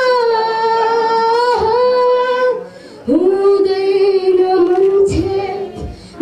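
A child singing solo into a handheld microphone, holding long notes in two phrases with a short breath between them about two and a half seconds in.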